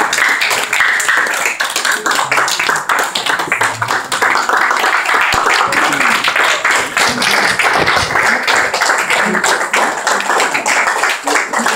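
Audience applauding, many hands clapping at once in a dense, steady clatter.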